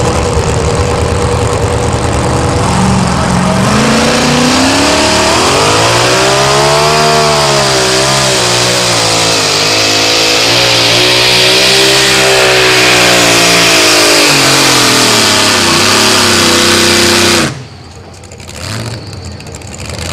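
Supercharged engine of a two-wheel-drive Chevrolet pulling truck running at full throttle while dragging a weight-transfer sled. A few seconds in the revs climb, then hold high with the pitch wavering up and down. Near the end the engine is shut off abruptly as the pull ends.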